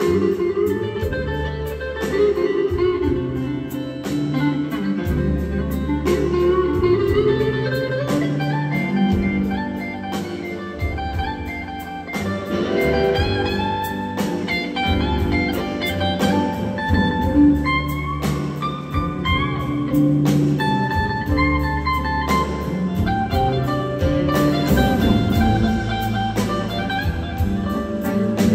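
A live electric blues band plays a slow blues instrumental passage. A lead electric guitar plays gliding, bending notes over electric bass, drums and keyboard.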